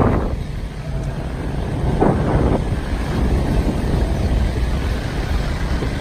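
Vehicle driving along a dirt road: a steady low rumble from the engine and tyres, with wind buffeting the microphone and a brief louder gust about two seconds in.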